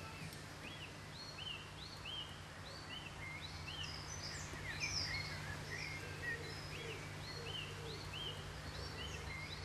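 Several small birds chirping in quick, repeated short notes, over a steady low hum.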